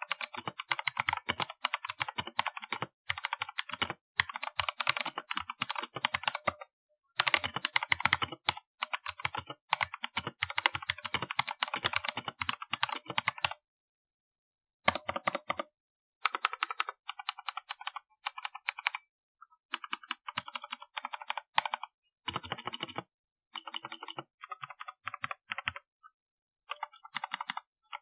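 Redragon Kumara K552 mechanical keyboard being typed on: fast runs of key clicks lasting several seconds each, broken by short pauses.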